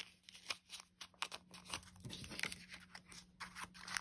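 Paper banknotes rustling and crinkling in short, irregular flicks as they are handled and tucked into a paper cash envelope.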